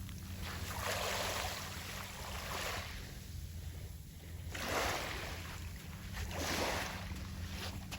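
Small sea waves washing onto the shore, three swelling washes of surf, over a steady low hum.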